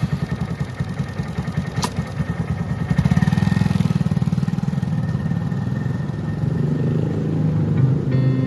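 125 cc single-cylinder motorcycle engine running with a fast low pulse, getting louder about three seconds in. Music comes in near the end.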